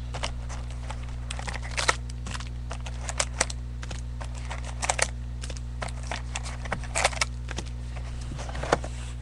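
Trading card box and foil packs being handled and opened: scattered short crinkles, rips and clicks over a steady electrical hum.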